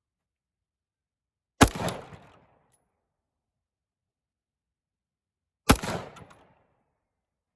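Two rifle shots about four seconds apart, each sharp crack followed by a short echoing tail.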